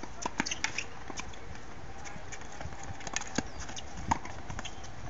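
Tennis balls pocking off racquets and bouncing on a hard court during a doubles rally: a series of short, sharp knocks at irregular spacing, several in the first second and more between about three and four seconds in.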